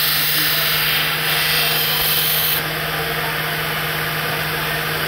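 Belt grinder running, with a stainless steel digging-tool blade ground against its abrasive belt: a harsh grinding hiss over the steady hum of the motor. The hiss drops away about two and a half seconds in as the blade comes off the belt, leaving the motor and belt running.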